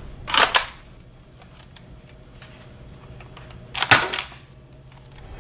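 Two short, sharp bangs about three and a half seconds apart from an Alpha Rogue toy foam-dart sniper rifle being worked.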